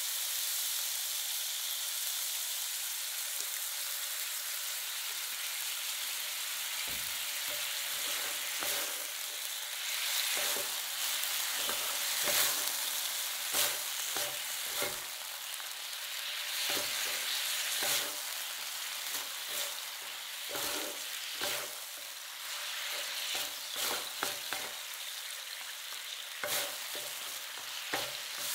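Thinly sliced beef and garlic sizzling on a hot flat griddle. From about seven seconds in, spatulas scrape and tap on the griddle surface over and over as they turn the meat.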